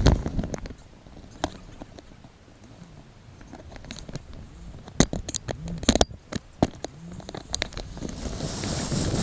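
A car's noise fades away in the first second. Then come scattered sharp clicks and knocks over a quiet background, the loudest about five and six seconds in. Vehicle noise swells again near the end.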